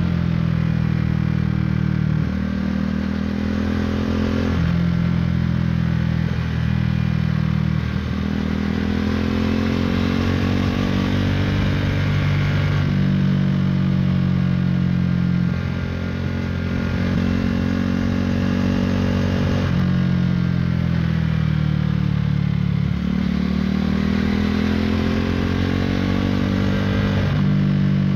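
KTM Duke 390's single-cylinder engine through an Akrapovic Racing Line exhaust, heard from the rider's seat while riding. The note climbs under throttle and drops suddenly every few seconds as the rider shifts gears and rolls on and off through the bends.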